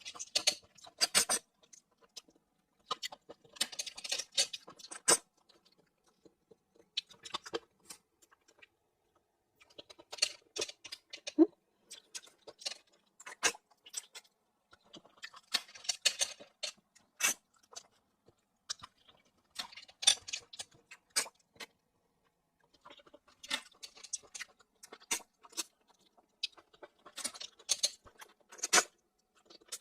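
Close-up eating of spicy snails in their shells: chewing and small clicks of shell, coming in clusters a few seconds long with short quiet pauses between them.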